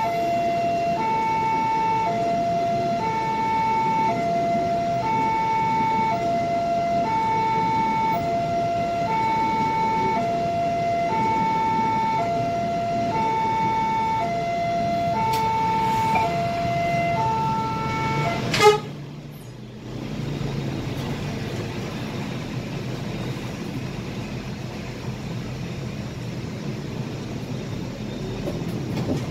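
Railway level-crossing warning alarm: an electronic two-tone signal alternating between a higher and a lower pitch, about one high-low cycle per second. It cuts off with a knock about eighteen seconds in, leaving the low running of the bus's engine.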